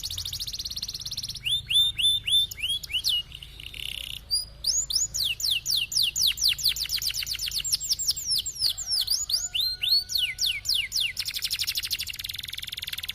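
Domestic canary singing a varied song. It opens with a fast high trill, then comes a run of quick falling whistled notes and a short buzzy phrase. A long series of rapid downward-sweeping notes follows, about five or six a second, and the song breaks back into a fast trill near the end.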